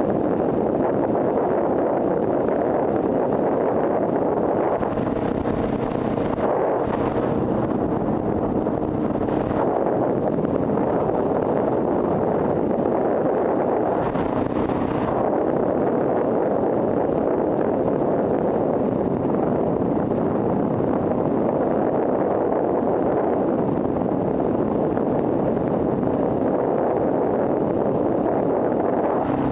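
Steady wind rush blasting across an action camera's microphone on a Yamaha V Star 1100 at freeway speed, with the bike's air-cooled V-twin engine faintly showing through now and then.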